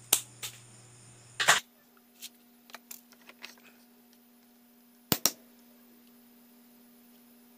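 A series of sharp clicks and taps over a faint steady hum, loudest as a double click about a second and a half in and another double click about five seconds in.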